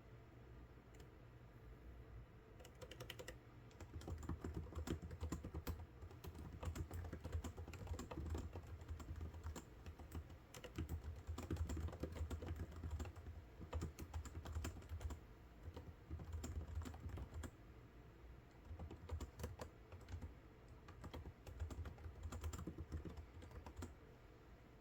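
Typing on a computer keyboard: bursts of rapid key clicks with short pauses between them, starting about three seconds in.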